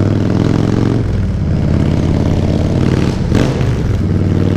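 Motorcycle engine running at low speed in slow traffic, a steady note whose pitch shifts about a second in, with a brief rush of noise a little past the middle.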